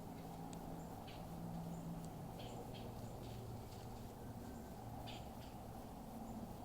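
Faint woodland ambience: a steady low hum under scattered short, high chirps of small birds, about half a dozen over the span.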